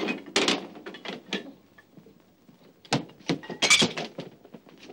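A handful of knocks and thuds from household things being handled, with the sharpest ones about three seconds in.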